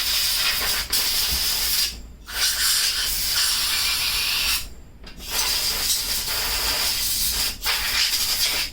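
Compressed air from a blow gun hissing in three long blasts of a few seconds each, with short breaks between, blowing dirt out of a lawn mower's air box cover.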